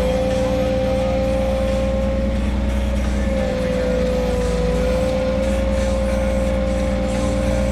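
Peljob LS 2000 mini excavator running, with a steady engine note and a strong hydraulic whine. The pitch sags slightly a few times as the freshly rebuilt boom and its cylinders are worked under load.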